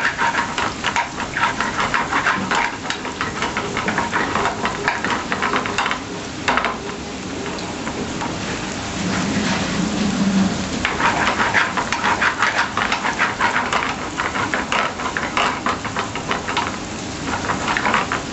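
Chopped garlic sizzling and crackling in hot oil in a small frying pan. The crackle eases for a few seconds about six seconds in, then picks up again.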